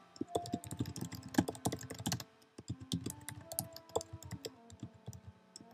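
Typing on a computer keyboard: a quick run of keystrokes, a short pause about two seconds in, then more keystrokes.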